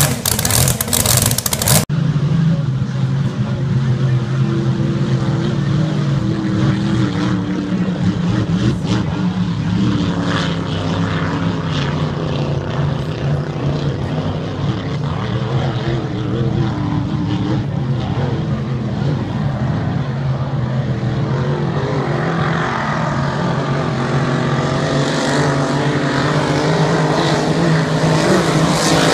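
Racing powerboat engine drone, steady, growing louder and brighter over the last several seconds as a hydroplane comes closer.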